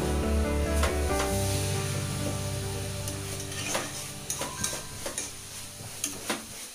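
Shredded cabbage sizzling as it fries in a black kadai, stirred with a spatula that scrapes and knocks against the pan at irregular moments.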